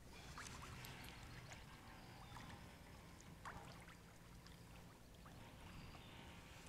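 Faint water splashing and dripping beside a kayak, with scattered small ticks and splashes.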